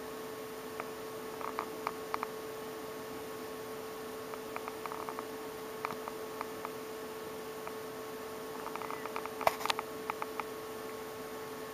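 A faint, steady hum with scattered light clicks and ticks, a cluster of them and one sharper click about nine and a half seconds in.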